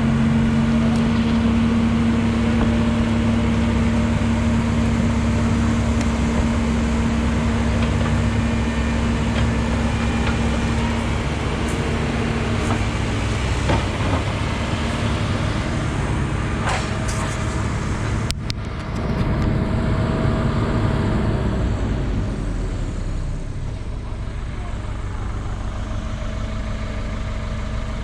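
Heavy diesel machinery engine running steadily under load, with a sudden change in the sound about two-thirds of the way through and a slightly lower level near the end.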